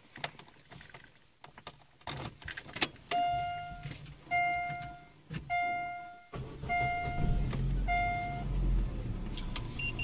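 Keys jingle and the ignition switch clicks as the key is turned in a Daewoo Lanos. From about three seconds in, five short electronic beeps sound. A little past halfway the engine starts and settles into a steady idle.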